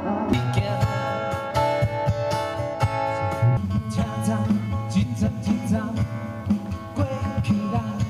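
Live band music led by guitar, played through a PA speaker.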